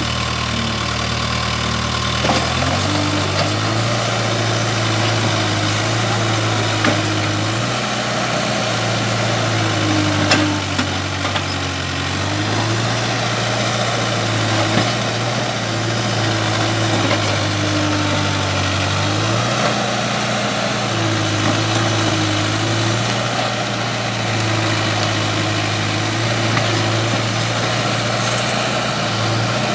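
Diesel engine of a Case backhoe loader running under work, its engine note stepping up and down every few seconds as the backhoe arm digs out and shifts uprooted bamboo clumps. A few short knocks come through, the loudest about ten seconds in.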